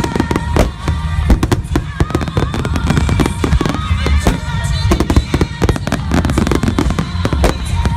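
A fireworks finale: shells bursting in quick, irregular succession, many bangs a second over a continuous low rumble, with music playing along.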